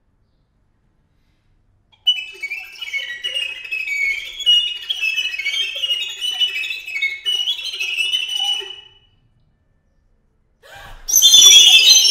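Recorders played on their head joints alone: a flurry of short, high whistles that flicker up and down in pitch, starting about two seconds in and stopping at about nine seconds. A louder burst of the same high whistling starts near the end.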